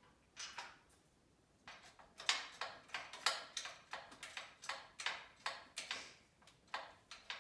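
A steady run of light, sharp metal clicks, about four a second, as hardware is tightened to fix the handle bracket of a DeWalt rolling table saw stand. A couple of single clicks come first, then the regular run.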